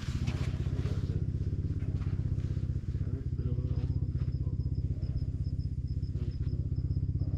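An engine running steadily with an even low throb. A faint, rapidly pulsing high tone comes in about halfway through.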